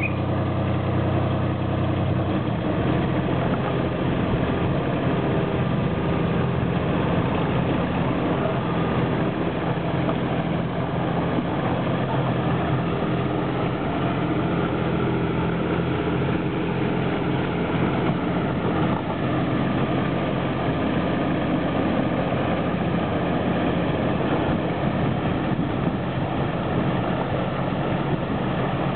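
The engine of a 7¼-inch gauge diesel-outline miniature locomotive running steadily as it hauls the train, heard from the carriage right behind it, with a low rumble under it. Its note changes about two seconds in.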